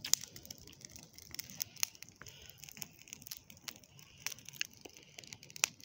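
Bonfire of dry leaves and garden waste crackling, with many irregular sharp pops and snaps.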